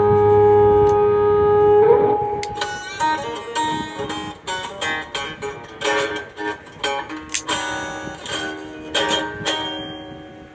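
Fender Stratocaster electric guitar playing: a chord is held for about two seconds, then picked single notes and chords follow, thinning out and fading near the end.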